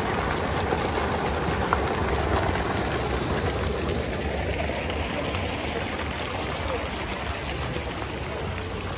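Fountain jets splashing into a stone basin: a steady rush of falling water that slowly fades over the second half.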